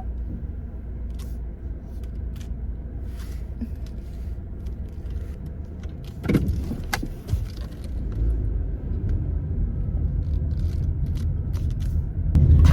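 Steady low rumble of a car heard from inside the cabin while driving, growing louder in the second half, with scattered light clicks and a couple of knocks about six and seven seconds in.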